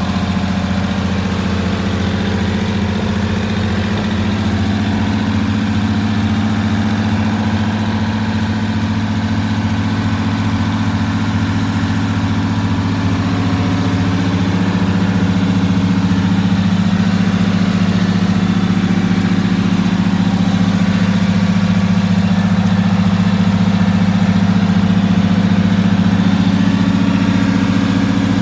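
Diesel engine of a GMC bus conversion idling steadily, a little louder in the second half.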